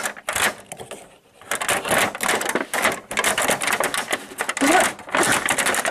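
Small plastic toy fence pieces clicking and rattling in the hands as they are fitted together, a job that keeps catching. After a short lull near the start, a dense run of rapid clicks.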